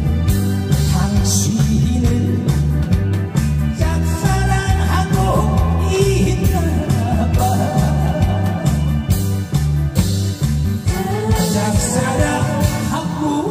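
A song sung over a loud amplified backing track with a strong, steady beat.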